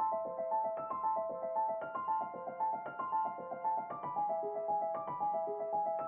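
Background music: a light piano or electric-piano melody of short, evenly paced notes.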